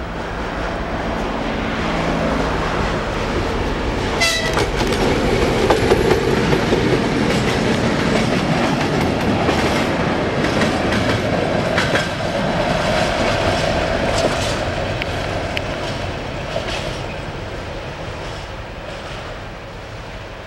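Hungarian M62 diesel locomotive with its two-stroke V12 diesel engine running under power as it approaches, passes close by and fades into the distance. A short horn blast sounds about four seconds in, and the wheels clack over the rail joints as the locomotive and its two wagons go by.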